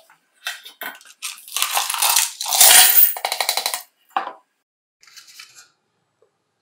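Small steel impact-driver parts and dark liquid poured from a plastic jar into a wire-mesh strainer in a stainless steel pan: splashing and metallic clinking, loudest about two and a half to three seconds in. Then a single knock and a brief, faint rattle.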